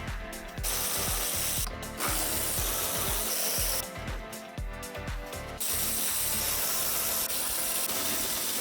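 Ratchet clicking rapidly in three runs, the last about three seconds long, as fasteners are worked on the car's front end. Background music with a steady beat plays under it.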